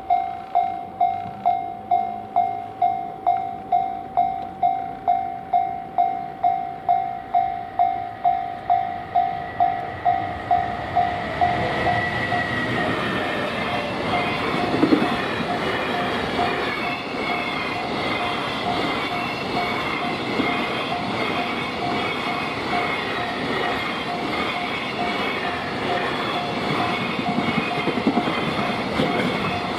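Japanese level-crossing alarm ringing its electronic 'kan-kan' at about two strokes a second. About eleven seconds in, a train passes over the crossing, and its steady rumble and clatter on the rails drowns the bell for the rest of the time.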